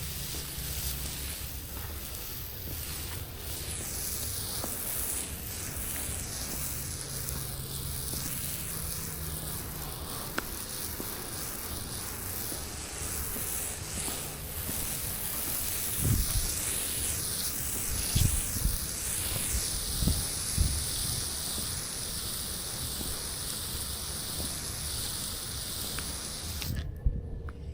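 Steady hiss of water spraying from a hose nozzle onto a concrete driveway, wetting it down, with a low hum underneath. A few low thumps come a little past the middle, and the spray cuts out briefly near the end.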